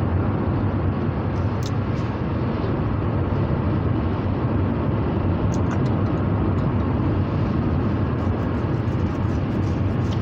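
Steady road and engine noise inside a car's cabin while driving, an even low rumble with a few faint clicks.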